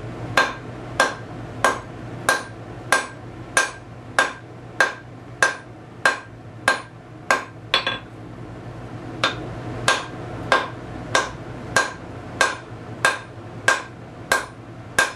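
A 2.5-pound sledgehammer striking a one-inch steel bar at forging heat on the anvil. Heavy overhand blows come about one and a half a second, each with a ringing note, with a pause of about a second just past halfway.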